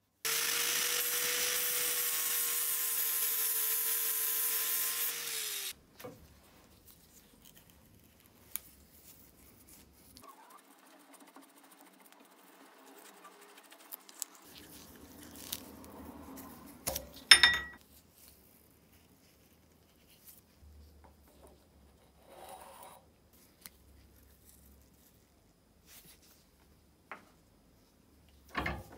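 Angle grinder running steadily for about five and a half seconds, grinding off the riveted end that holds the old grater's crank handle together, its pitch dropping as it spins down. Then quiet handling of the loose metal parts, with one sharp metallic knock about seventeen seconds in.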